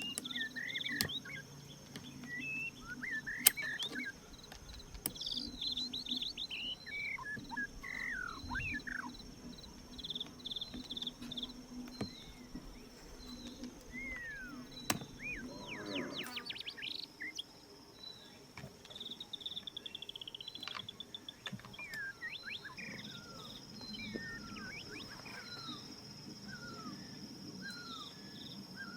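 Birds chirping with many short, quick calls, over a steady high insect drone, with a few sharp clicks.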